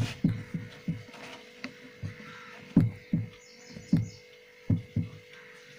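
A ballpoint pen knocking and writing on paper laid on a table: about ten dull, irregularly spaced taps. A steady electrical hum runs underneath.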